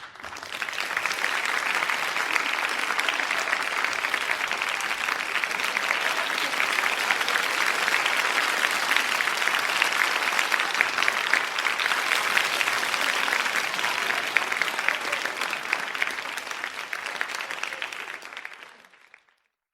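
Crowd applauding: dense, steady clapping from many hands that starts at once and fades out near the end.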